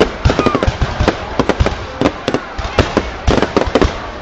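Fireworks going off in quick, irregular succession: many sharp bangs and pops overlapping one another.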